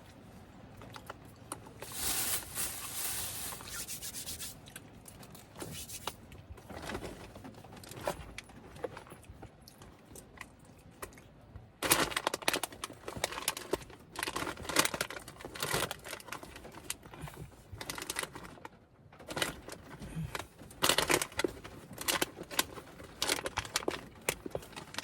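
Irregular rustling and crinkling handling noises: a noisy burst about two seconds in, then denser, clicky rustling from about halfway through.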